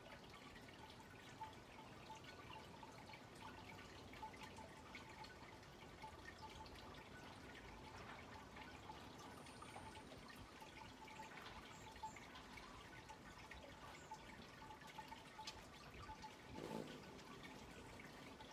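Near silence: faint background noise with a few faint, brief high peeps.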